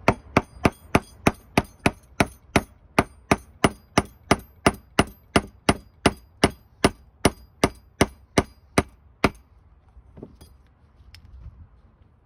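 Hammer striking a thin metal punch held against a clutch master cylinder: a steady run of about two dozen ringing metallic taps, roughly three a second, that stops about nine seconds in. The punch is driving the old rubber seal out of the cylinder.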